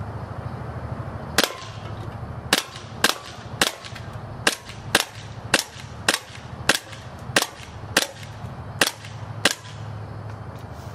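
KJW Glock 27 gas blowback airsoft pistol firing about thirteen semi-auto shots of 0.25 g BBs, one sharp crack with the slide's blowback roughly every half second at an uneven pace, over a steady low background hum.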